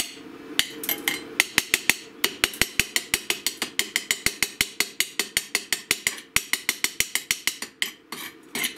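Chipping hammer rapidly knocking slag off a freshly run 7018 stick-weld bead on a steel bar: a quick run of sharp metallic taps, about five a second, that stops near the end.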